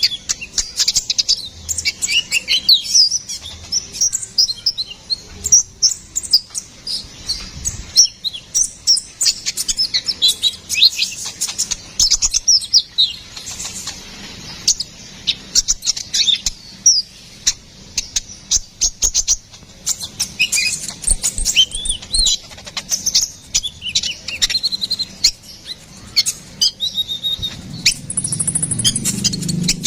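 Sunbird (konin kolibri ninja) singing a fast, high twittering song of quick chirps and trills, almost without pause. A low rumble comes in near the end.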